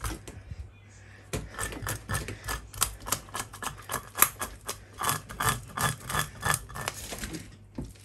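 Hilsa scales being scraped off with the rim of a small stainless steel bowl: a rapid run of short scraping clicks, several a second. It starts about a second in and stops shortly before the end.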